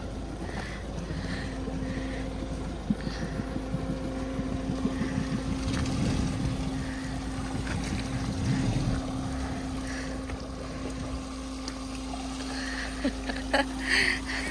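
Mahindra Scorpio N SUV's engine running steadily as the vehicle wades through deep muddy water and climbs out of it. Water churns and sloshes around the body, heaviest about halfway through.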